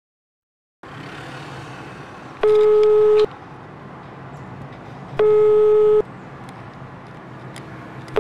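Telephone ringback tone heard through a mobile phone while a call rings out: a single pitched beep of just under a second, repeating about every three seconds. It sounds twice, with a third starting at the end, over the steady road and engine noise inside a moving car.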